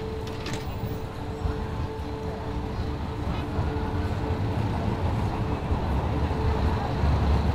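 City street traffic noise, a low rumble that grows louder, with a few sharp clicks in the first half second and a steady held tone underneath.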